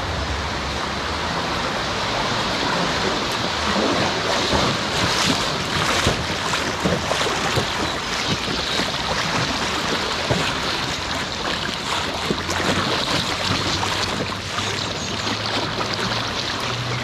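River water rushing and splashing around a packraft, with many small irregular splashes.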